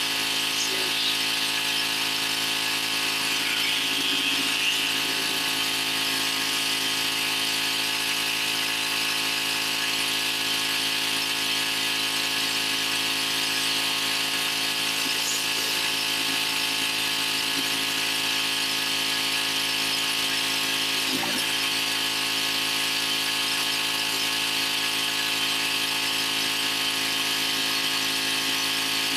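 Pressure washer running steadily at one unchanging pitch, with the hiss of its high-pressure water spray on paving stones.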